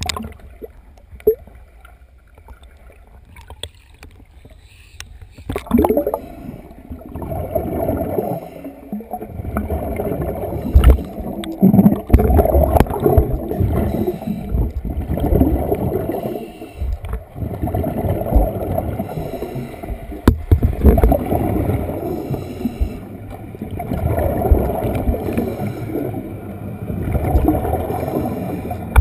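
Scuba diver's exhaled air bubbling and rushing, recorded underwater. The noise is low for the first few seconds with a few knocks, then comes in surges every two to three seconds.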